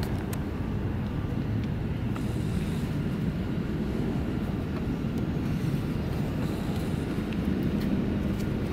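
Steady low outdoor rumble, like distant traffic or wind on the microphone, with a few faint taps.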